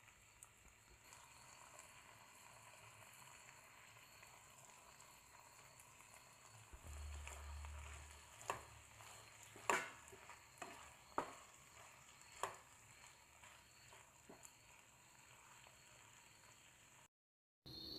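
Pasta being stirred with a spatula in a nonstick frying pan: a faint sizzle, with several sharp taps and scrapes of the spatula against the pan about halfway through.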